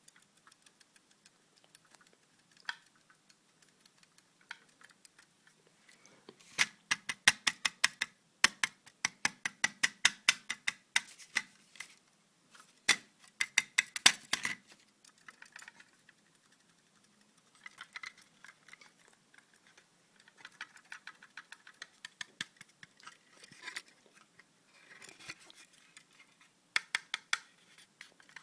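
Solid-state drive (SSD) making strange rapid clicking and ticking in bursts, thickest and loudest from about six to fifteen seconds in, then in shorter, fainter clusters.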